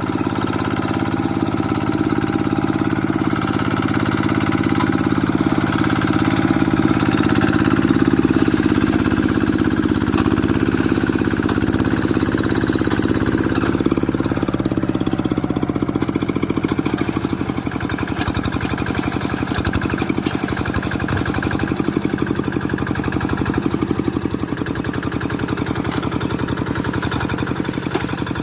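Quick G1000 hand tractor's diesel engine running steadily and heavily. About halfway through it eases to a lighter, evenly pulsing run.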